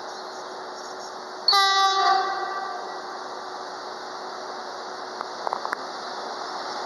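Electric locomotive's horn: one short blast about a second and a half in, fading off over the next second. The noise of the approaching train then grows louder toward the end, with a few small clicks near the end.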